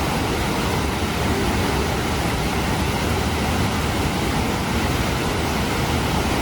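Steady, unbroken rushing of a large waterfall, an even roar of falling water with no separate events.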